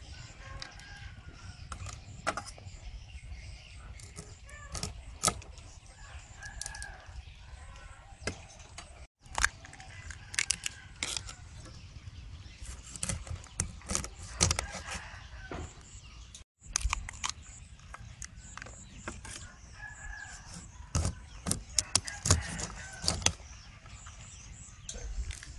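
Repeated sharp cracks and taps as raw blue crab shells are cut with a cleaver on a wooden chopping board and broken apart by hand. A rooster crows in the background several times.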